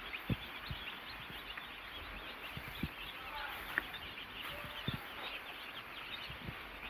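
A crowd of baby chicks peeping, a dense chorus of short high cheeps with no break, with a few soft low thumps among them.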